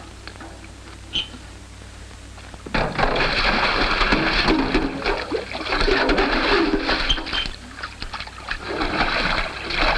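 Water poured from buckets into a farm water tank, splashing loudly from about three seconds in, after a quieter stretch with only a low hum.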